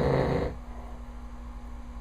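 A man snoring loudly in his sleep: a snore ends about half a second in, followed by a pause with only a steady low hum.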